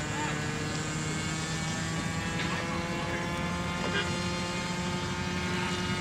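Model airplane engine running at a steady pitch while the plane is held on the runway before takeoff.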